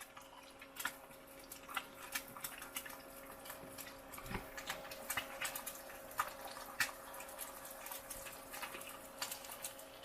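An egg frying in hot oil in a pan, the oil crackling and spitting in irregular little pops. A faint steady hum runs underneath.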